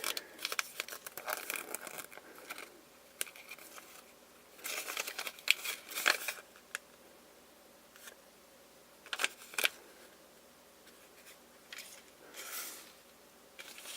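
Hands handling the small plastic parts and wrapping of a Kinder Surprise toy: scattered clicks, rustles and crinkles, with a few louder bursts of handling.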